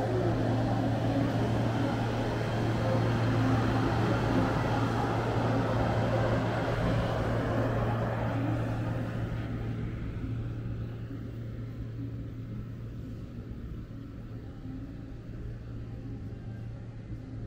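A passing vehicle, loudest a few seconds in and fading away over several seconds, over a steady low hum.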